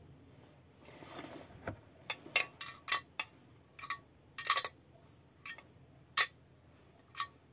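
About a dozen irregular, sharp metallic clinks, starting about two seconds in, as a small bearing and loose parts are handled against the crankshaft and crankcase of a Peugeot 103 SPA moped engine.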